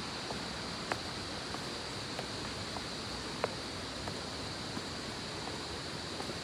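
Steady rushing of a waterfall's water ahead, with a few faint clicks, the clearest about one and three and a half seconds in.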